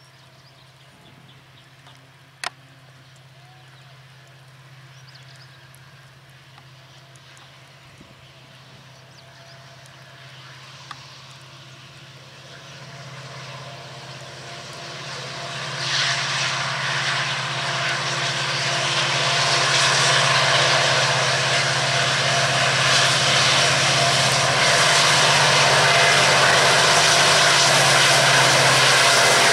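Diesel locomotive hauling a passenger train as it approaches: the engine's steady low drone grows louder and louder, joined by the running noise of wheels on the rails, and is loudest in the last third. There is a single sharp click about two and a half seconds in.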